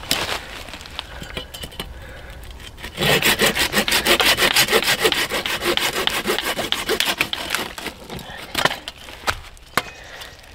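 Curved folding pruning saw cutting through a branch, with quick, even back-and-forth strokes that pick up about three seconds in and stop about eight seconds in. A few scattered knocks follow.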